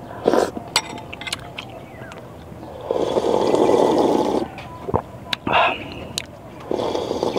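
A person slurping dinuguan broth (pork blood stew) straight from a glass bowl: two long, loud slurps, the first about three seconds in and lasting about a second and a half, the second starting near the end. Light mouth clicks and chewing come before them.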